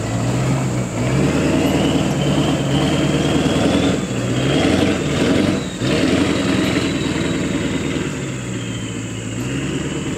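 1997 Ford F-350's 7.3-litre PowerStroke turbo-diesel V8 pulling away under throttle. The engine note rises and falls, with a high whistle riding above it. There is a short lift off the throttle about six seconds in, then the sound fades as the truck moves off.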